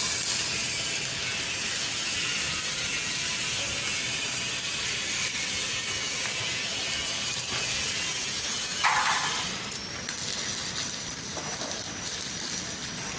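Electric welding arc gouging a hole through iron: a steady crackling hiss. A brief louder burst comes about nine seconds in, and the arc sounds somewhat quieter after it.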